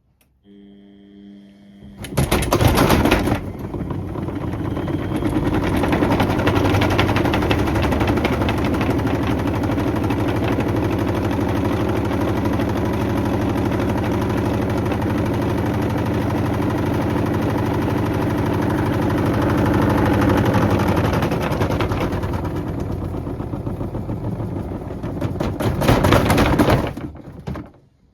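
Beko WM74135 washing machine running with a dense, rapid mechanical rattle. A faint hum comes first; the rattle starts abruptly about two seconds in, surges loudly at its start and again near its end, then cuts off.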